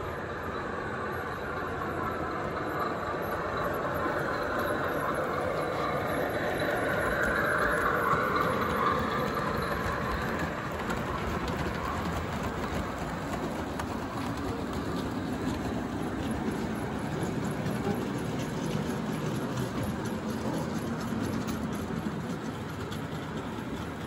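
0 gauge model diesel locomotive and coal hopper wagons running along the layout track, a steady rumble of wheels and motor that swells to its loudest about eight seconds in as the train passes close, then settles to a lower rumble as it draws away.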